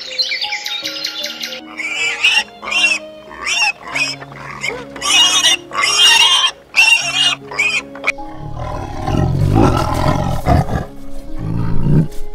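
Wild boar piglets squealing in a quick series of sharp, shrill bursts. About eight seconds in they give way to a tiger growling, low and loud.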